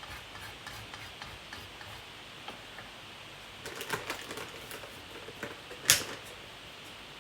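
Scattered small clicks and taps of craft items being handled on a tabletop, with a few close together about four seconds in and one sharper click just before six seconds.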